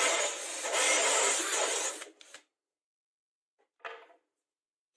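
Cordless drill running a hole saw through a thin wooden board, easing off briefly and then cutting hard before stopping abruptly about two seconds in. A single brief, light knock follows near the end as a cut wooden disc is handled.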